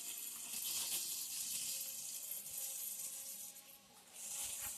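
A steady faint hiss, dipping away briefly near the end.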